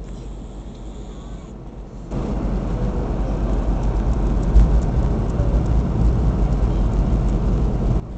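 Airliner cabin noise on approach: a steady rumble of engines and rushing air heard from a window seat, stepping up louder about two seconds in.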